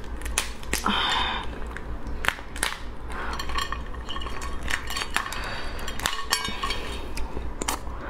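Raw lobster's shell being pulled apart by hand: a run of sharp cracks and crackles as the shell and legs break, with a longer crackling tear about a second in, and clinks of shell against a ceramic plate. A low steady hum lies underneath.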